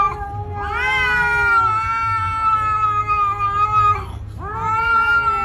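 A cat yowling in long, drawn-out cries: one held steady for about four seconds, then after a short break a second that rises and holds.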